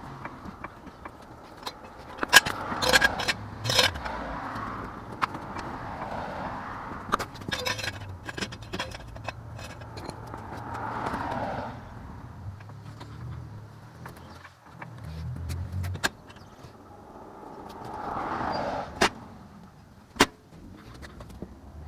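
Scattered metal clanks and rattles from a floor jack and jack stand being handled and set under the van, with several sharp knocks. A swelling and fading hiss of passing traffic sits behind them.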